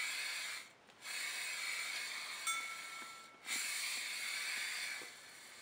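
Aerosol spray-paint can hissing in three sprays with short breaks between them: the first stops about half a second in, the second runs about two and a half seconds, the third ends about five seconds in.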